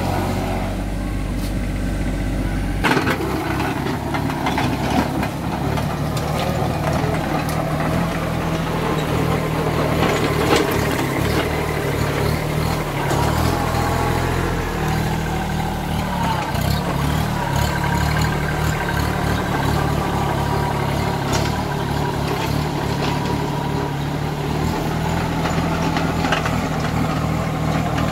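Kubota NeoStar compact tractor's three-cylinder diesel engine running steadily under load, driving a mini rotavator through its PTO as the rotavator tills the soil. The engine's sound changes abruptly about three seconds in.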